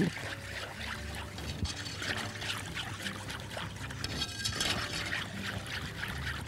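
Wire whisk stirring a cold mix of milk, sugar and custard powder in a pot: continuous liquid swishing and sloshing as the powder is whisked in before heating.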